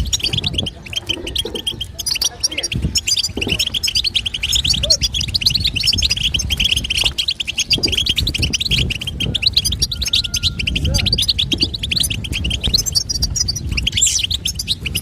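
European goldfinch, tagged as a female, giving its rapid 'betbeta' twittering call: quick chirps repeated many times a second without a break. It is the call said to set caged goldfinches singing. A low rumble runs underneath.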